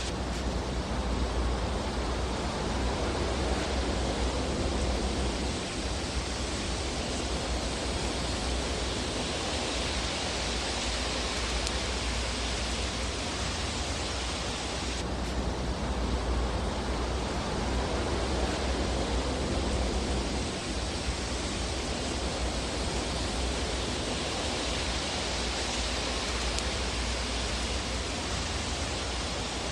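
Fireplace fire ambience: a steady hiss and low rumble of burning logs. The hiss shifts abruptly about halfway through.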